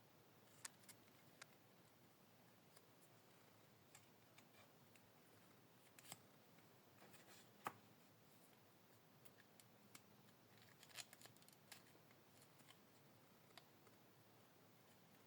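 Very quiet room tone with scattered faint clicks and taps, from a miniature collectible and its packaging being handled.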